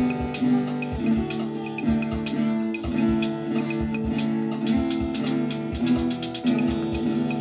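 Guitar music, plucked and strummed notes in a steady rhythm.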